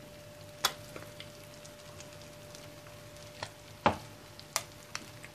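Melted butter sizzling gently in a frying pan around halved boiled eggs, with several sharp pops, the loudest about four seconds in.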